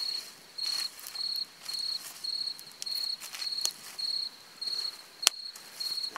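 A cricket chirping steadily, about two short high chirps a second, over the crackle of a wood campfire. About five seconds in there is one sharp loud crack.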